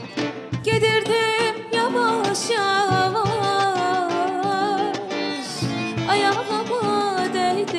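A woman singing a melody in long held notes with a wavering vibrato, accompanied by a plucked acoustic guitar.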